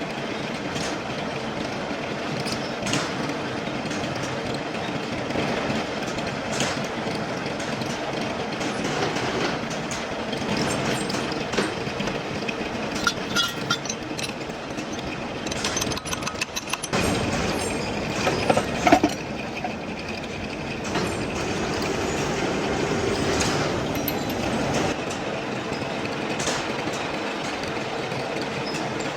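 Heavy machine-shop machinery running steadily, with a constant hum and scattered metallic clicks and knocks. A louder stretch of clatter comes a little past the middle.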